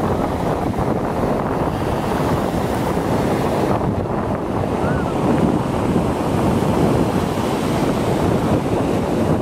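Ocean surf breaking and washing up a sandy beach, a continuous rushing noise, with wind buffeting the microphone. The hiss grows brighter about four seconds in.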